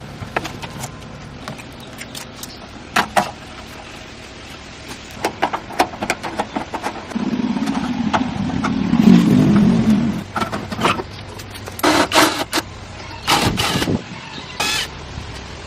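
Work on a car: a string of sharp clicks, knocks and scrapes, with a low motor sound running for about three seconds in the middle.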